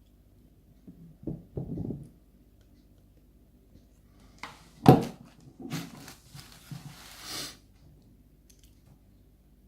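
A picked-open lock and its picking tools being handled: a couple of dull knocks, then one sharp loud clack about five seconds in, followed by a couple of seconds of scraping and rattling.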